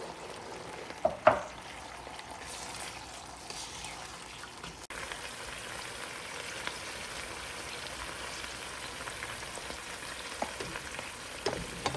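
Sauce of oil, sweet chili sauce and water sizzling steadily in a saucepan as it is stirred, with two brief clinks of the utensil against the pan about a second in.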